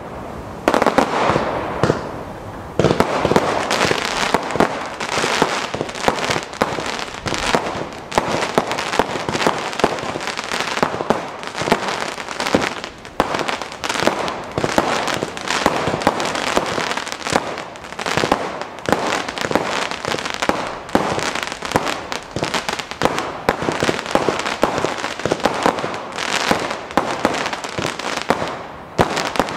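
Black Panther 'Beach Bangers' 296-shot firework cake firing in rapid succession: a continuous barrage of shots launching and bursting, some bursting into crackle, with a brief lull about two seconds in.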